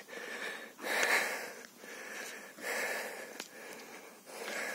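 Wild boar injured by a car breathing hard with a rasping wheeze, one laboured breath about every second.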